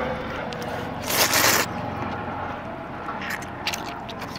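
Noodles being slurped: one long noisy slurp about a second in, then a few shorter ones near the end.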